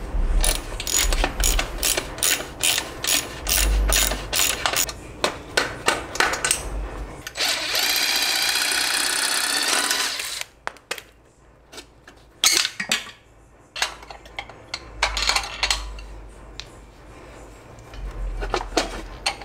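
Hand ratchet wrench clicking in quick strokes on a bolt, then a cordless drill runs steadily for about three seconds. After it, scattered metal tool clinks and one sharp knock.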